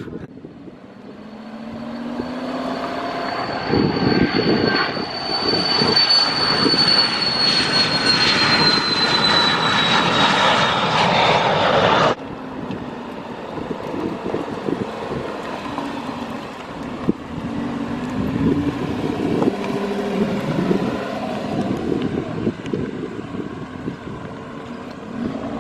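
Fixed-wing aircraft engines, a high whine slowly falling in pitch over a growing rush of noise that cuts off abruptly about twelve seconds in. After that comes a quieter, steady vehicle rumble.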